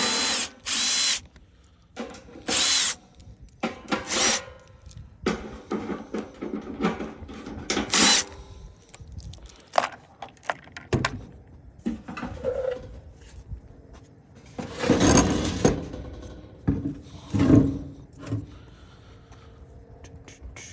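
Cordless power drill run in several short bursts of about half a second each, then irregular knocks and rattles of parts being handled.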